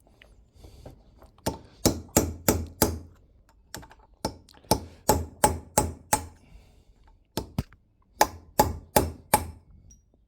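Hammer blows ringing on steel, in runs of rapid strikes about two to three a second with short pauses between runs: a tool being driven in to break a worn bush out of its housing piece by piece.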